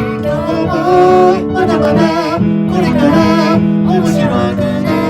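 Background music: a melody over plucked guitar, with sustained notes.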